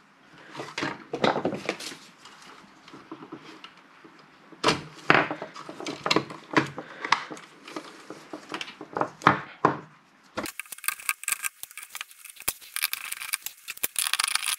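Hands working inside a bench power supply's metal case, with scattered clicks and knocks of a screwdriver, wires and connectors being handled. From about ten seconds in, a denser crackly rustling with many small ticks takes over.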